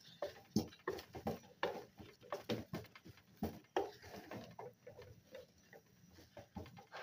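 Wooden cooking stick working stiff ugali in a steel pot: irregular knocks and scrapes of the stick against the pot, several a second, with soft squelches from the thick maize dough.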